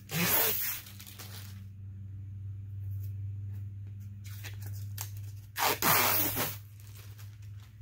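Protective plastic film being peeled off a thin plexiglass sheet with a tearing crackle, in two pulls: a longer one at the start and a shorter one about six seconds in.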